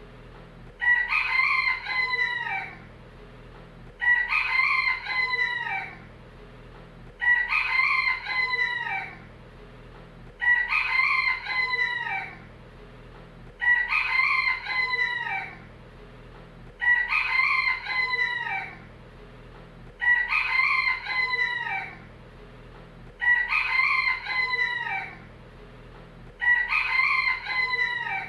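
Rooster crowing cock-a-doodle-doo, nine crows of about two seconds each, one every three seconds or so. Every crow has the same shape, the same crow repeated on a loop.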